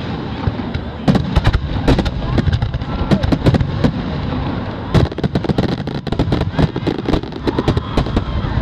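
Fireworks display: aerial shells bursting in a dense barrage, with many sharp bangs and pops coming irregularly, several to a second, over a continuous rumble.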